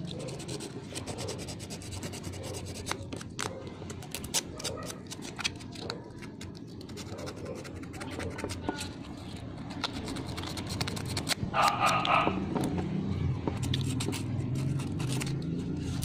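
Small clicks, taps and rubbing as fingers handle the metal contacts and plastic housing of a Honda TMX 125 Alpha's starter-switch assembly. A brief louder sound about twelve seconds in.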